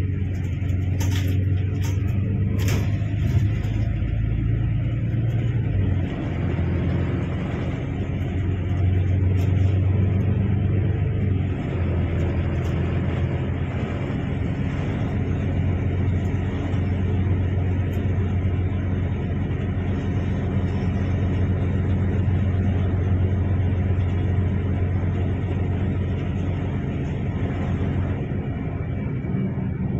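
Car driving, with a steady low engine and road rumble.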